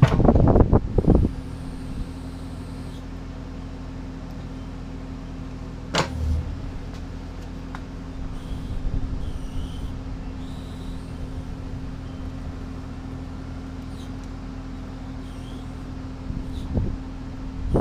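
Kubota excavator's diesel engine running steadily, louder for the first second, with a sharp knock about six seconds in.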